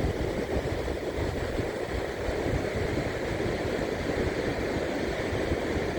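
Ocean surf washing steadily under a stormy wind, with wind rumbling on the microphone.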